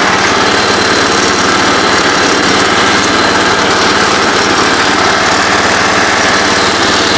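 Kohler K241 10 hp single-cylinder engine of a Ford riding lawn mower running steadily at a constant speed. The owner says its idle circuit doesn't work.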